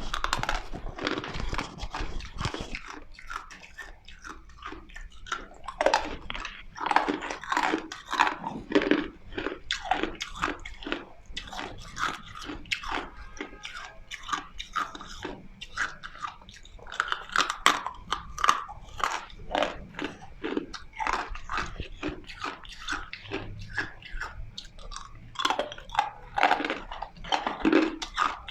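A person biting and chewing hard ice, with a steady run of sharp, crackling crunches several times a second.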